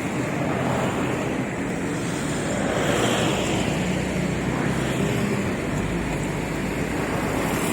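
Steady wind rushing over the microphone, with road traffic noise underneath.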